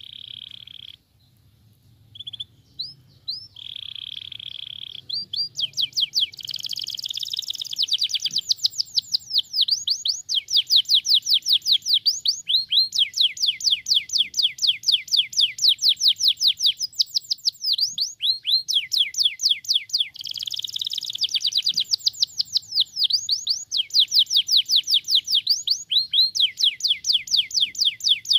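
Domestic canary singing: a short held whistle and a few short notes, then long rapid trills of quick sweeping notes, about ten a second, switching from one trill pattern to another every few seconds.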